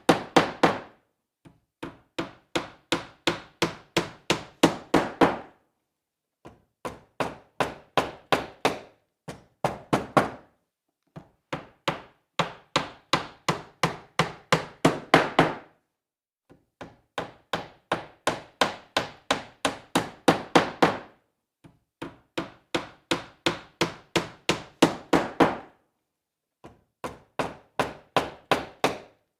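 Hammer driving nails into wood: runs of quick, sharp blows, about three a second, each run getting louder toward its end, with short pauses between runs.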